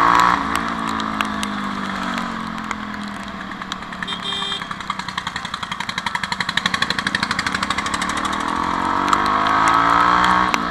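Jawa 42's single-cylinder engine easing off, running at low revs with a plain pulsing exhaust beat through the middle, then pulling up in revs again near the end. A steady hiss of tyres on the wet road runs under it.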